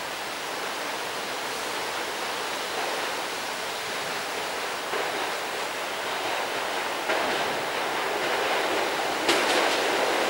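An EN57 electric multiple unit approaching on the rails: an even rushing hiss that grows slowly louder, turning sharper and brighter with a click about nine seconds in as the train draws nearer.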